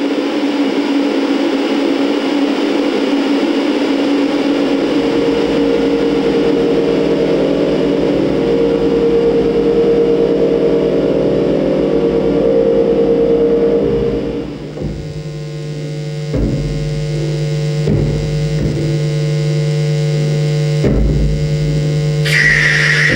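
Live electronic noise music made in Max and Ableton: a dense, distorted drone with held tones that thins, about two-thirds of the way in, to a steady low hum broken by a few low thumps. A bright high tone sounds near the end.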